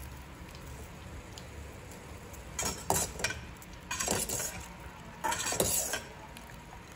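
Stainless steel perforated skimmer scraping and clinking against the inside of a stainless steel pot while scooping blanched beans out of the cooking water. It comes in three short bursts, from a few seconds in until near the end.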